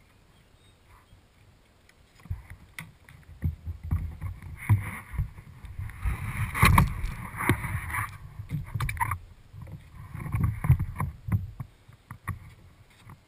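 Water splashing and sloshing around a kayak, with irregular low knocks and bumps carried through the hull. It is quiet for the first couple of seconds, busiest in the middle, and dies down near the end.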